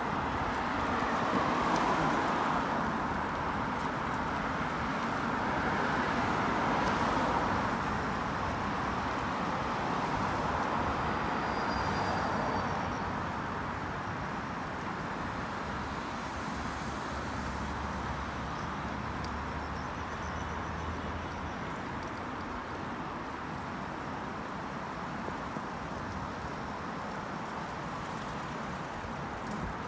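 Road traffic on a multi-lane city avenue: cars passing in several swells over the first dozen seconds, then a steadier, slightly quieter traffic noise.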